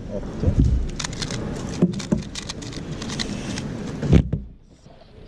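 2x2 speed cube turned fast by hand: a quick run of sharp plastic clicks and clacks. It ends about four seconds in with a loud thump as the cube is put down and the hands come down on the stackmat timer to stop it.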